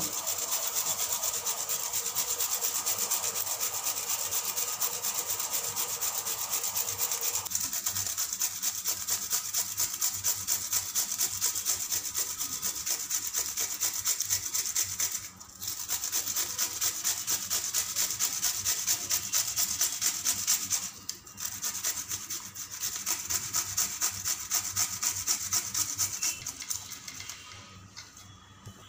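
Peeled cucumber being grated by hand on a metal box grater: quick, even rasping strokes, about three or four a second, that break off twice for a moment and stop near the end.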